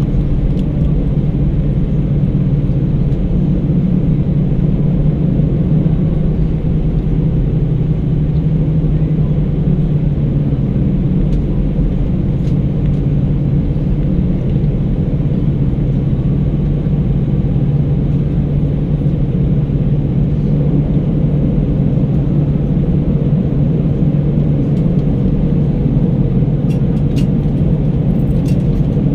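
Steady low cabin rumble inside an Airbus A319 on the ground after landing, from the idling jet engines and cabin air heard at a window seat. A few faint clicks near the end.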